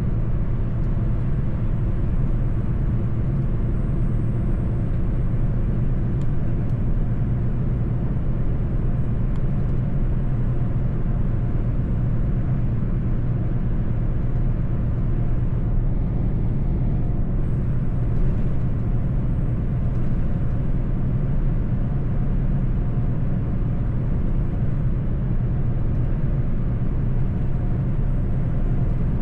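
Mercedes-Benz truck driving at a steady pace: a continuous low engine drone with road noise, even in level throughout.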